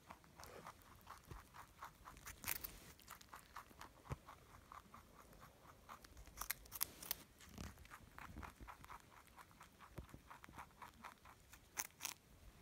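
Pet rabbit chewing a piece of carrot held in the fingers: a quick, even run of soft crunches, about five a second, with a few louder crunches as it bites off more.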